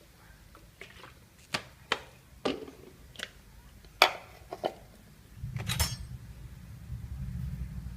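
Kitchen utensils and dishes clinking and knocking, about seven separate sharp strikes over a few seconds, the loudest about four seconds in. A steady low rumble starts at about five and a half seconds.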